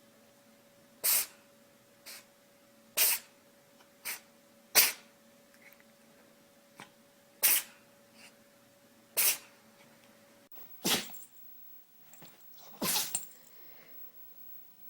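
An animal sneezing again and again: about seven sharp sneezes with a couple of smaller ones between, roughly one every one to two seconds, over a faint steady hum that cuts off about ten seconds in.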